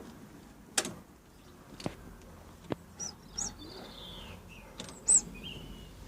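Four sharp clicks at uneven intervals, the loudest near the end, with a bird chirping briefly between them.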